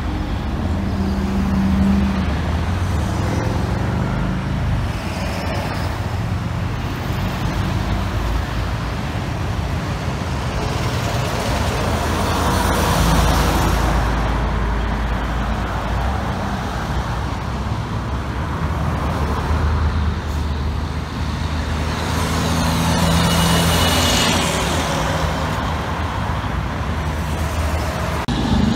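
Road traffic passing close by: diesel semi trucks and cars going past, engines running under tyre noise that swells and fades with each pass, loudest about 13 and 24 seconds in.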